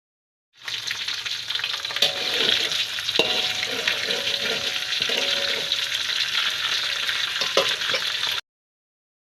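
Food sizzling as it fries in hot oil in a pan, a steady hiss with a few sharp knocks of a utensil against the pan; starts about half a second in and cuts off suddenly near the end.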